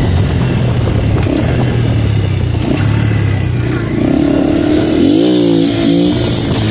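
Honda Pop 110i's small single-cylinder four-stroke engine, fitted with a sport air filter, running under way. Its pitch holds steady, rises about four seconds in, then dips sharply and climbs again as the rider shifts gear.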